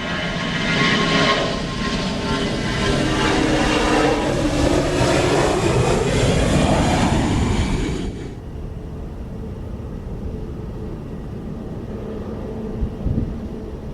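Jet airliner passing close by, its engine roar and whine dropping in pitch as it goes past. The roar cuts off abruptly about eight seconds in, leaving a lower steady rumble with a couple of thumps near the end.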